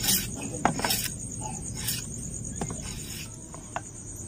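Raw new potatoes being cut by hand with a curved blade, wedges dropping onto a steel plate: a few short clicks and taps, some with a brief metallic ring. A steady high insect chirring runs behind.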